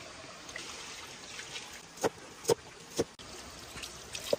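A cleaver chopping through pumpkin onto a wooden chopping board: three sharp chops about half a second apart a couple of seconds in, and another near the end. Water runs steadily from a hose underneath.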